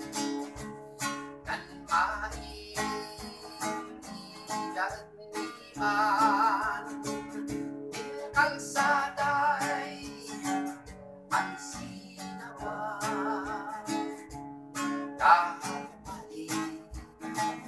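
A man singing, with vibrato on his held notes, while strumming an acoustic guitar.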